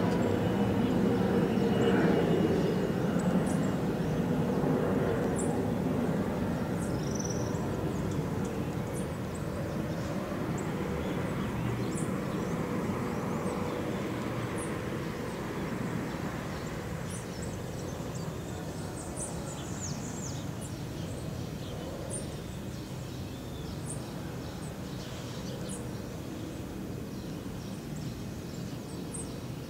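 Jet airliner in flight at a distance: a steady engine rumble that slowly fades as it moves away.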